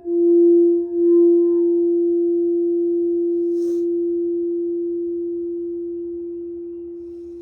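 Singing bowl for the heart chakra ringing one steady, pure note that wavers slightly in the first second, then is left to sustain and slowly fade. A faint tick comes about three and a half seconds in.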